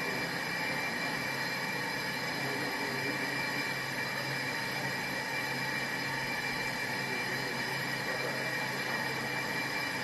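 Brake drum and disc lathe running: a steady machine drone with a constant high whine and a low hum.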